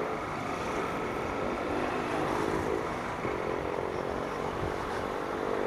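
Honda CG 160 Start's single-cylinder four-stroke engine running at a steady cruise while the bike is ridden, under wind noise on the microphone.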